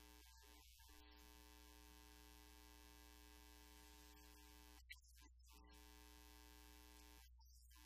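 Near silence: a faint steady electrical hum, with faint steady tones above it that drop out briefly a few times and a tiny click about five seconds in.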